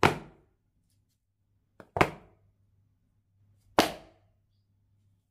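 Three sharp knocks of the boxed iPhone 14 Pro Max being set down on a hard desk, about two seconds apart, the second with a light tap just before it. A faint low hum runs underneath.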